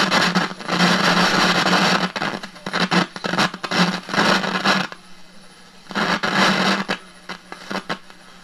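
Tube radio's speaker hissing and crackling with static as the inductor tuner is turned across the band, in loud bursts with short quieter gaps, over a steady low hum. The noise comes from the inductor tuner itself, whose coils had come loose from their glue and vibrated, and whose guide shaft was rusty.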